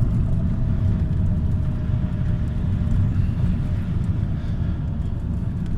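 Steady low rumble of constant background noise, with a faint steady hum over the first half.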